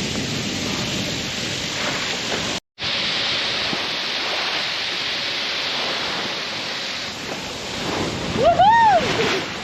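Wind on the microphone and water rushing past a sailboat's hull under sail, a steady hiss that drops out for a moment about three seconds in. Near the end comes a short pitched cry that rises and falls.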